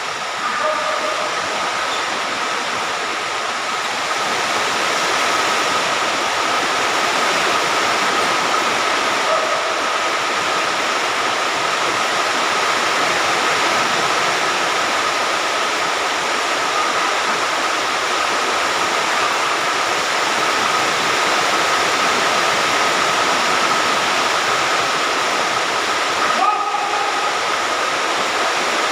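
Heavy rain falling steadily, a dense even hiss, with a faint steady high tone running through it.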